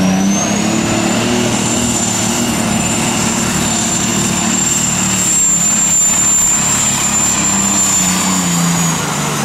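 A pulling tractor's engine running at full throttle as it pulls the sled down the track, with a high whine that climbs in the first second and then holds steady until near the end.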